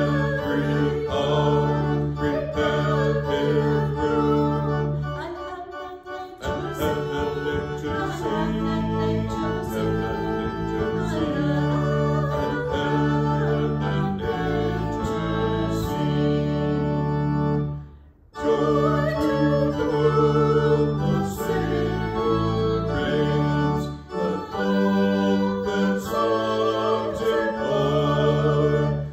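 A hymn sung by a woman and a man with organ accompaniment, the organ holding long low chords under the voices. The music breaks off briefly about two-thirds of the way through.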